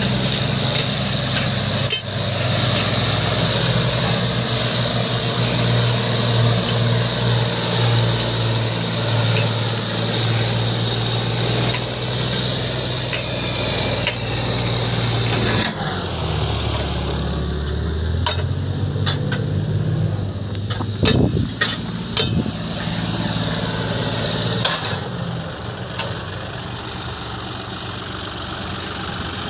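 John Deere tractor diesel engine running hard while pulling a sugarcane trolley over a rough, muddy track. About halfway through the engine note drops lower, and a few knocks and clatters follow.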